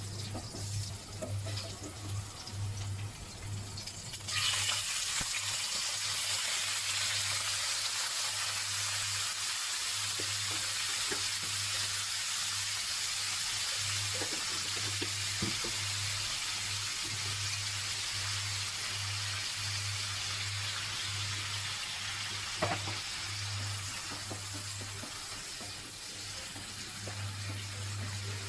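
Chopped garlic sizzling lightly in hot oil in a wok, then about four seconds in a sudden loud, steady sizzle as small whole octopus go into the oil, with the odd click of a wooden spatula stirring.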